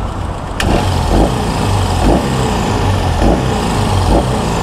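BMW R18's 1.8-litre boxer twin running through a Jekyll & Hyde aftermarket exhaust with its valve closed: a steady low rumble with several short swells in level. A sharp click about half a second in.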